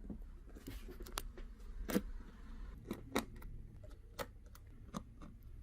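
Scattered small clicks and taps, about a dozen at irregular spacing, from a small screwdriver and tiny screws being worked out of a laptop's display frame.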